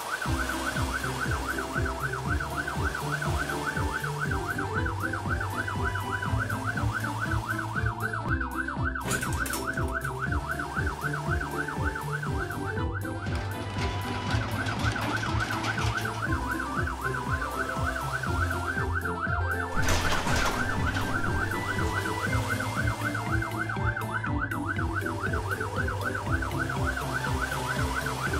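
Cartoon police car siren: a fast warbling wail that rises and falls several times a second, over background music with a low bass line.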